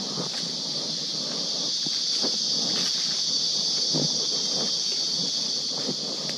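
A steady, high-pitched chorus of forest insects, swelling slightly in the middle, with footsteps shuffling through leaf litter underneath.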